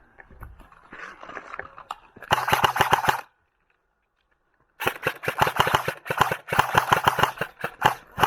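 Airsoft guns firing rapid strings of shots: a string of about a second, then after a break a longer string of shots from about the middle onward.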